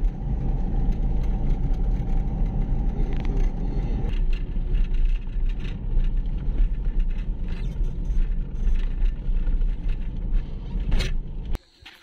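Ride noise inside a small motor vehicle on a rural road: steady engine and road rumble. About four seconds in it turns rattlier, with more clicks and knocks, and one sharp knock comes shortly before it cuts off suddenly near the end.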